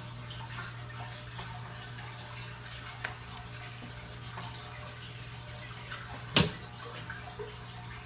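Aquarium water circulating steadily with a low, steady pump hum beneath it. A single sharp knock about six seconds in.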